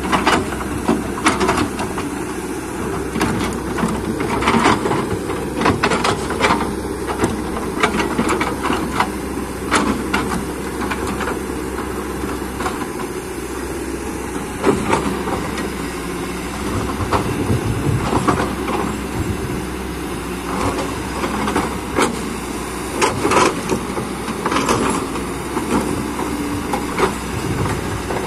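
Hydraulic excavator working: the engine runs steadily under load while frequent irregular knocks and clanks come from the machine as it digs and moves earth and rock.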